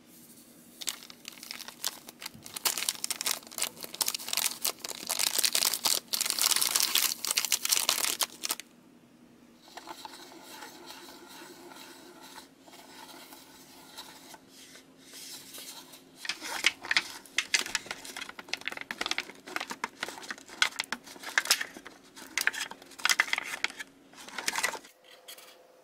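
Wooden stick stirring candy powder into liquid in a plastic tray, scraping against the plastic with a dense, scratchy sound, along with crinkling from the foil powder packet. A quieter pause comes in the middle, followed by bursts of scraping and stirring as the mix thickens into slime.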